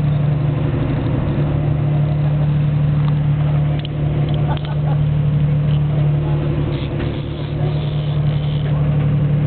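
Boat engine running steadily at one pitch.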